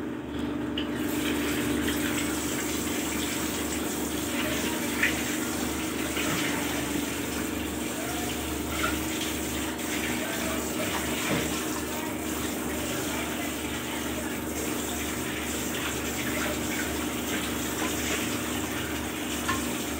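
Tap water running at a kitchen sink while steel vessels and lids are rinsed, with occasional clinks of metal utensils. The running water starts about a second in.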